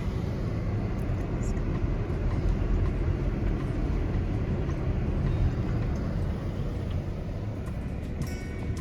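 Steady low rumbling noise, like wind or road noise on the microphone, with a few faint clicks near the end.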